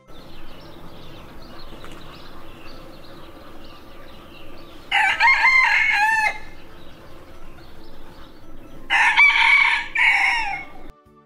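Rooster crowing twice, about five seconds in and again near nine seconds, each crow lasting under two seconds, over steady background clucking of hens.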